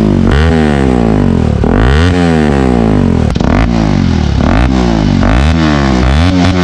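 Bajaj Pulsar RS 200's single-cylinder engine breathing through an aftermarket R9 exhaust, revved in repeated blips about once a second, each climbing quickly and dropping back. The exhaust note is deep and loud.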